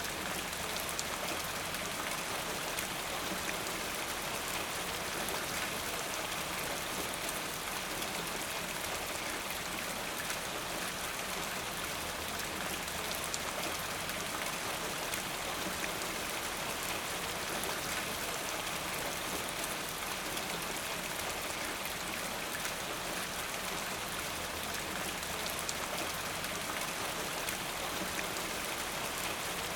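Steady rain falling: an even hiss made of many small drop hits, unchanging throughout.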